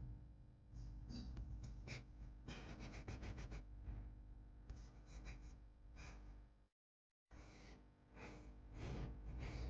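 Faint small clicks, taps and rustles of objects being handled, including a quick run of ticks about two and a half seconds in, broken by a sudden half-second dropout to dead silence about seven seconds in.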